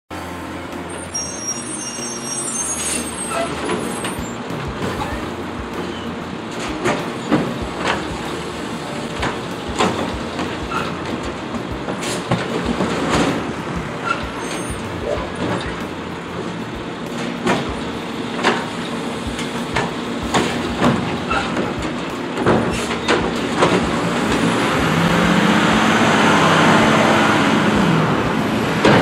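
Automated side-loader garbage truck running at the curb while its hydraulic arm grabs, lifts and tips wheeled bins, with repeated sharp bangs and knocks of the bins and arm. Near the end the truck's diesel engine revs up and grows louder as it pulls away.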